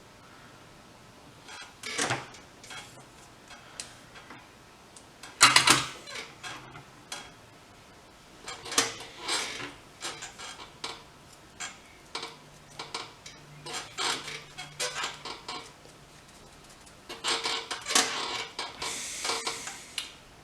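Small tools and parts being handled on a workbench: irregular clicks, clinks and knocks, the loudest about five seconds in, with a short hiss near the end.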